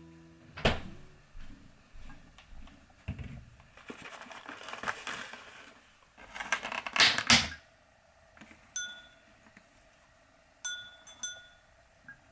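Small household objects being handled: scattered knocks and clicks, a stretch of rustling, then a louder clatter about seven seconds in. A few short, bright ringing clinks follow near the end.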